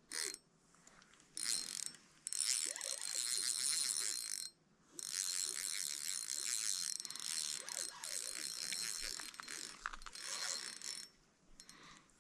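Fishing reel clicking quickly in several runs, the longest lasting about six seconds, as a hooked carp is played and reeled in.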